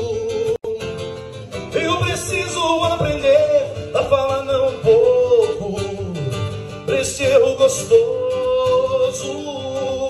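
Live male vocals with acoustic guitar, amplified through a Protech 'Banda' speaker box at a high volume. The voice holds long, wavering sung notes over the strummed guitar, with a momentary dropout about half a second in.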